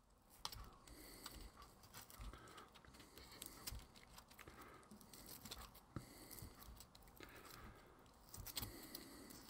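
Faint handling sounds of small craft materials worked by hand: scattered light clicks and short crinkly rustles.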